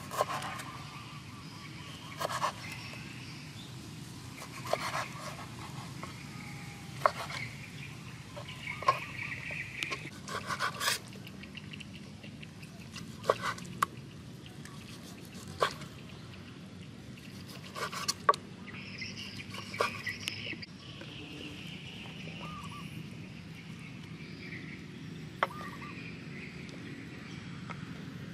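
A large kitchen knife slicing raw beef on a wooden cutting board, the blade knocking sharply on the board every second or few at an uneven pace. Birds call in the background.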